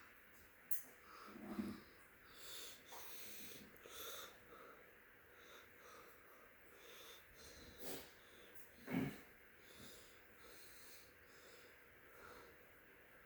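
Faint breathing close to the microphone, with a few small clicks and two short low bumps.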